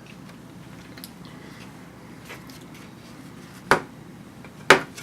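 Quiet room background with a few faint ticks, then two sharp clicks about a second apart near the end, from small parts being handled.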